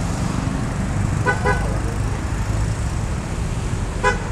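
Steady road-traffic rumble from passing vehicles, with a vehicle horn giving two short toots about a second in and two more near the end.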